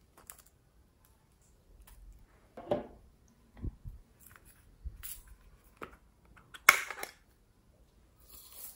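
Small plastic toy containers handled and opened by hand: scattered plastic clicks and taps, the loudest about seven seconds in, then a short hiss near the end as something is poured from a clear plastic cup.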